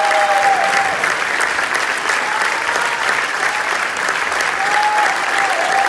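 Theatre audience applauding steadily, a dense even clapping, with a few drawn-out cheering calls above it near the start and again near the end.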